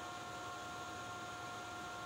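Steady machinery hiss and hum with three constant high whining tones, unchanging throughout, typical of running industrial equipment such as a screw air compressor.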